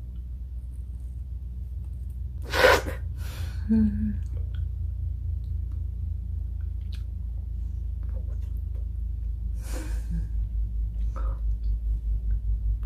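A person eating a cube of frozen yogurt: chewing with the mouth closed, with a loud, short noisy burst about two and a half seconds in, a softer one just after, and another about ten seconds in, over a steady low hum.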